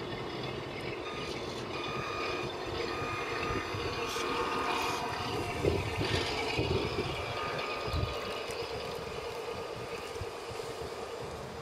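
Small motor running steadily, with a whine of several held tones over a noisy hum that swells slightly in the middle.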